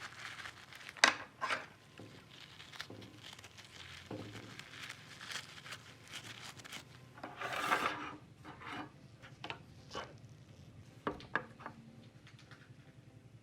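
Scattered sharp clicks and taps with a longer scraping rub in the middle: small hand tools and parts being handled while a diecast model car is worked on.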